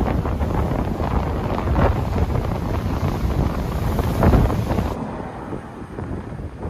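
Strong wind buffeting the microphone in loud, gusting rumbles, easing to a softer blowing about five seconds in.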